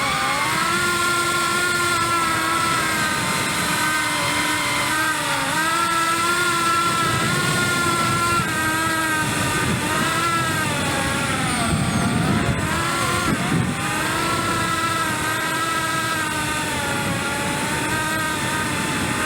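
Skystars Angela145 cinewhoop FPV drone's brushless motors and ducted propellers whining, the pitch rising and dipping again and again with throttle changes.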